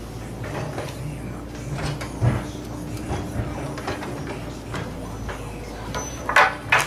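Timber roof trusses knocking and clattering as they are pushed along the top of a wall frame, with scattered sharp wooden knocks, the loudest one about two seconds in and two more close together near the end.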